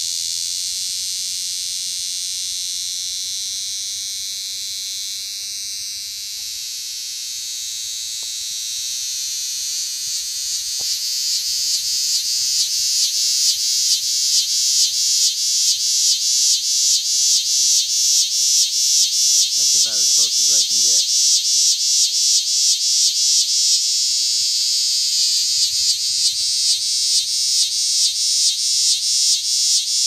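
Cicada singing close by: a loud, high buzz that swells after about ten seconds into a rapid, even pulsing buzz.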